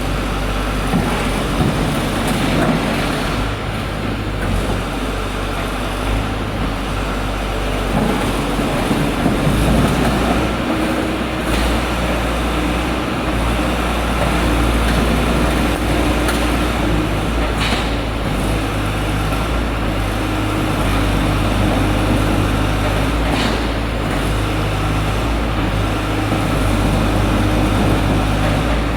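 Diesel engine of a portable hydraulic baler running steadily, with a pitched whine that comes and goes midway and a few light clicks.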